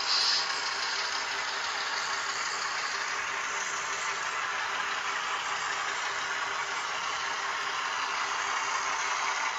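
Model freight train rolling past close by: a steady rushing rattle of wheels on rail with a low hum underneath, and a brief high squeal right at the start.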